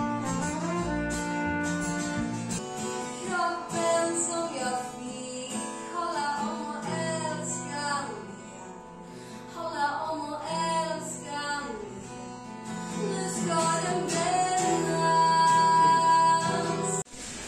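Live music: a woman singing while strumming an acoustic guitar.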